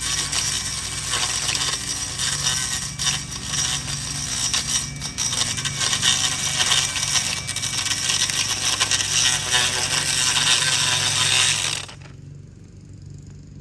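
Battery-powered Milwaukee Quik-Lok edger attachment running and cutting along a lawn edge, a loud, gritty noise that cuts off suddenly near the end.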